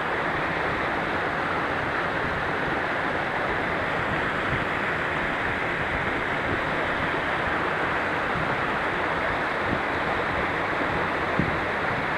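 Mountain stream rushing steadily over rocks and a small cascade, a constant even roar of water.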